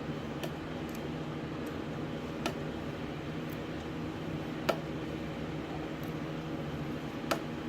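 A few sharp, separate clicks of small metal parts being handled and fitted as a blow-off valve is put back together, over a steady background hum; the loudest click comes a little before the middle.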